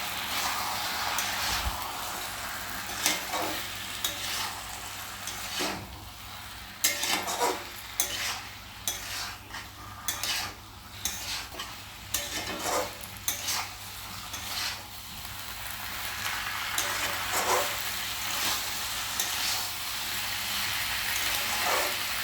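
Chicken, onion and capsicum in a chilli-tomato sauce sizzling in a kadai while a utensil stirs them, scraping and knocking against the pan. The knocks come thickest in the middle of the stretch, over a steady frying hiss.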